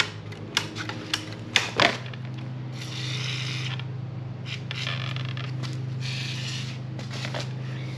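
WD-40 aerosol can spraying in three hissing bursts of about a second each onto a dirt bike's brake lines, to free up squealy, tight brakes. A few sharp clicks and knocks come first, and a steady low hum runs underneath.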